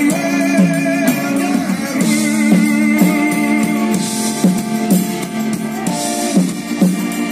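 Live rock band playing an instrumental passage: a guitar carries long held notes, some with vibrato, over drums and bass.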